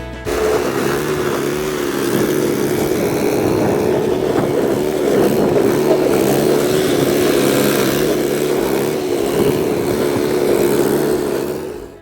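YARDMAX YB4628 single-stage snow thrower's gas engine running steadily, its pitch wavering slightly; it cuts in abruptly just after the start and fades out near the end.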